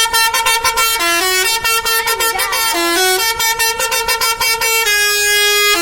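A bus's multi-tone 'telolet' horn playing a tune: rapid stuttering blasts that jump between a few notes, then one long held note near the end.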